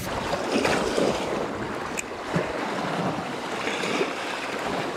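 Small wind-driven waves lapping and breaking against a rocky lake shore, with wind on the microphone. A single sharp click about two seconds in.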